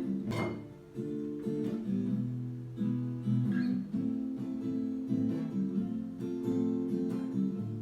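Acoustic guitar playing an instrumental intro, chords changing about once a second.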